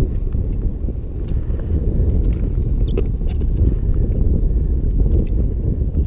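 Strong wind buffeting the microphone, a loud gusty low rumble, with a few brief clicks and a short high chirp about halfway through.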